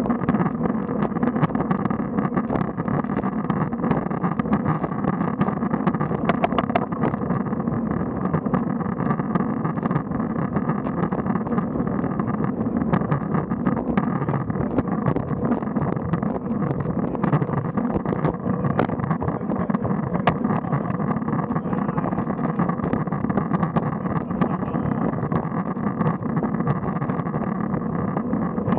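Steady road and wind noise from road bikes climbing at a gentle pace, as heard from a rider's camera, with scattered faint clicks.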